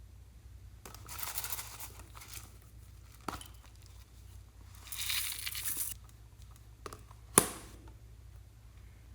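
Crinkling in two stretches of about a second each, with a few sharp clicks in between. The loudest event is a sharp click with a short ring about seven and a half seconds in.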